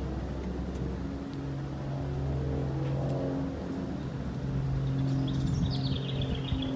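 Steady low hum of a distant engine under outdoor ambience, with a short descending bird call about five seconds in.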